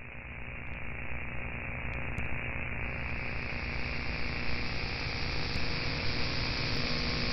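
Static-like hiss with a faint low hum, slowly fading in, its top end suddenly opening out brighter about three seconds in: the noisy opening of an AI-generated (OpenAI Jukebox) experimental electronic track.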